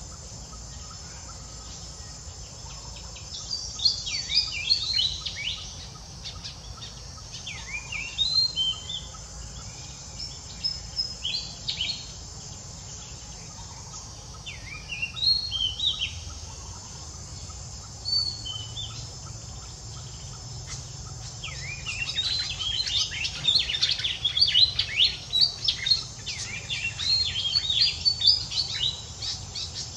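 Birds chirping in bursts of quick, high, downward-sweeping calls. The bursts are scattered at first and become almost continuous over the last eight seconds, over a steady low background noise.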